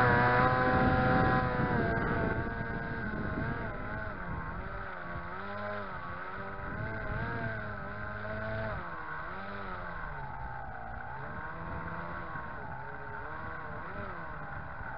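Foam RC F-15 model plane's motor and pusher propeller running as a steady whine, heard up close from a camera mounted on the plane. The pitch holds steady for the first couple of seconds, then rises and falls again and again as it flies.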